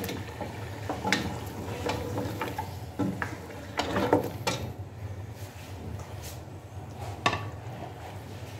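Goat trotters and a wooden spoon knocking against the side of a pressure cooker as the raw trotters are stirred into the fried masala, with a few scattered clatters over a low steady hum.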